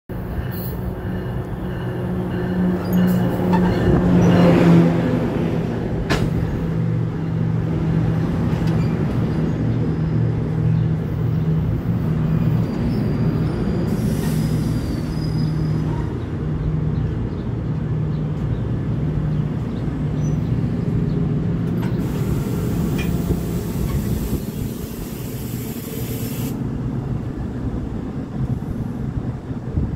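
NJ Transit bilevel commuter train pulling into the platform and stopping: a steady low engine drone and rail rumble, loudest a few seconds in, with a sharp clank about six seconds in. Near the end a hiss of air runs for about four seconds.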